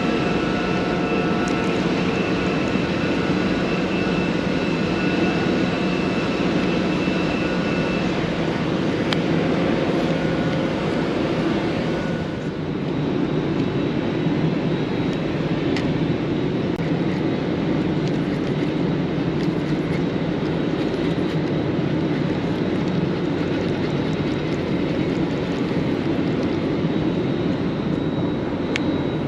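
A steady engine drone under a constant rushing noise, with a few faint steady whining tones that fade out about a third of the way in.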